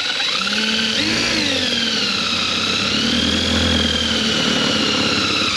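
Power drill running continuously under load, boring into the metal barrel; its pitch rises about a second in and then wavers as the bit bites.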